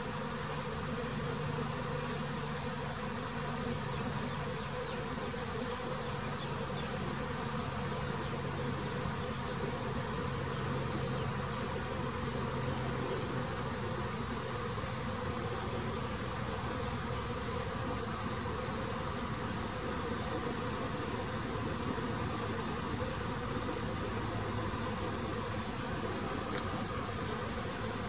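Honeybees humming steadily en masse, with a thin high-pitched chirp pulsing a little over once a second.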